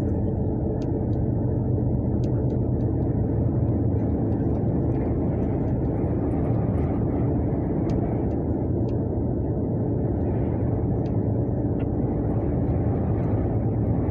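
Engine and road noise of a vehicle driving at steady speed, heard from inside the cab: a steady low drone, with a few faint clicks.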